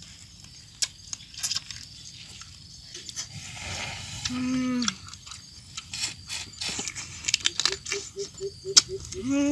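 Cooked crab being picked apart and eaten by hand: sharp clicks and cracks of shell, with chewing. A short pitched call sounds midway, and a quick run of about eight short calls comes near the end.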